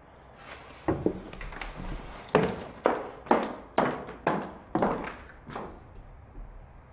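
A run of sharp thuds, about two a second, that dies away near the end.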